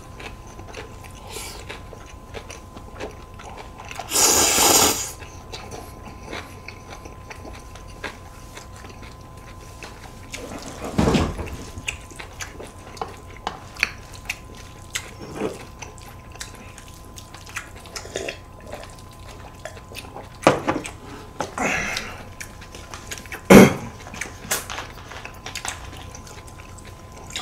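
Close-miked eating sounds: jajangmyeon noodles slurped and chewed, with many small clicks and smacks. The longest, loudest slurp comes about four seconds in, with shorter ones later on.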